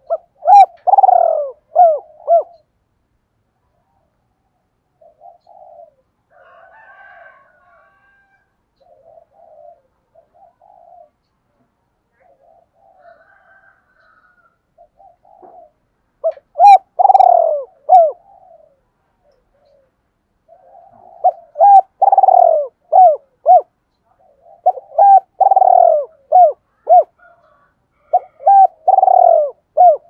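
Spotted dove cooing in the 'giọng đôi' (double-voice) style kept for decoy birds. It gives phrases of several notes, a longer falling coo followed by shorter ones: once at the start, again near sixteen seconds, then several phrases close together toward the end. Softer, fainter cooing fills the gap between.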